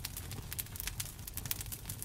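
Campfire crackling: irregular sharp pops and snaps of burning wood, several each second, over a low steady rumble.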